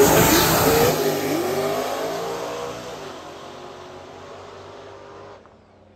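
Small-tire drag cars accelerating hard down the strip past the camera, engine note rising as they pass, then fading steadily as they pull away.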